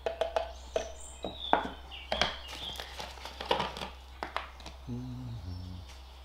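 Hands handling a small metal tester tin of wood stain and plastic bottles on a work table: a run of clicks, knocks and clinks as the tin is poured from and set down and a bottle of white spirit is picked up and opened. A short low tone in two parts comes near the end.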